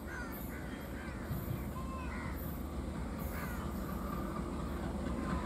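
ALCO WDM-3A diesel locomotive approaching, its low engine rumble growing steadily louder. Birds call repeatedly over it with short rising-and-falling notes.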